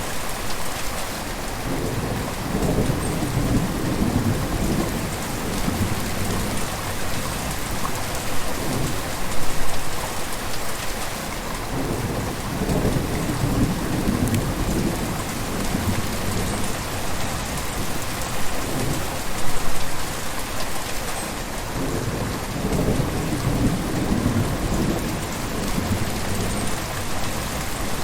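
River water flowing: a steady rush of water with a low rumble that swells and eases several times.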